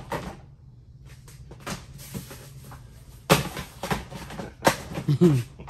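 Plastic DVD cases clacking against each other and against a plastic storage tote as they are handled. There are a few sharp clacks in the second half.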